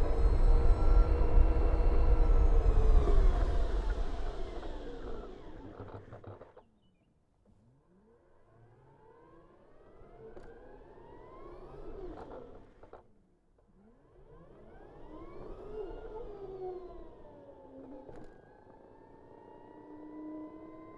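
BMW CE 04 electric scooter's motor whining, with several stacked tones. At first it is loud with wind rumble and falls in pitch as the scooter slows, nearly dying away about six seconds in. It then rises and falls twice as the scooter speeds up and slows again, and settles into a steady whine near the end.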